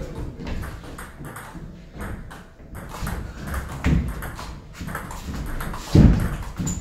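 Table tennis rally: the ball clicking off the bats and bouncing on the table in quick back-and-forth strokes. A heavy low thud near the end is the loudest sound.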